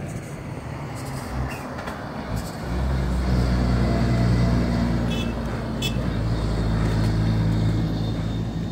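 Vehicle engine running steadily close by, coming in loudly about three seconds in, with a couple of short clicks in the middle.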